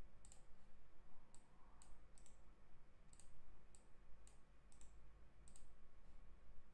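Computer mouse clicking: about a dozen sharp clicks at uneven intervals, a couple of them in quick pairs, as menu items and curves are picked in CAD software.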